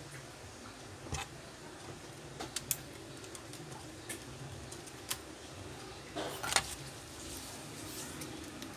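Scattered small clicks and taps of plastic and metal as the parts of an opened laptop are handled, with a short cluster of clicks about six seconds in, the loudest of them.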